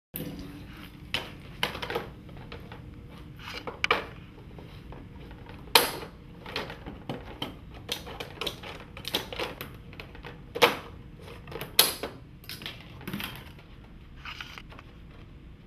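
Irregular clacks and knocks of stone veneer cladding panels being handled and set against a wall, with a handful of sharper, louder strikes standing out among lighter clicks.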